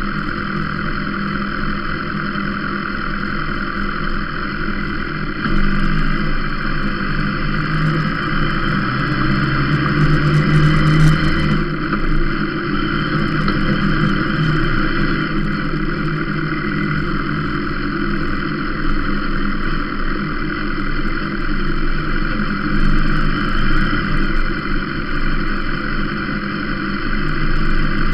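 Sport motorcycle engine running at low revs while riding slowly, its note steady apart from a short rise about ten seconds in.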